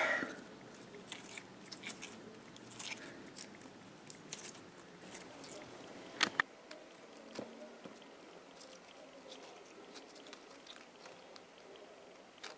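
Brown slime putty being stretched and squeezed by hand, giving faint sticky squelches and crackles, with a sharper click about six seconds in.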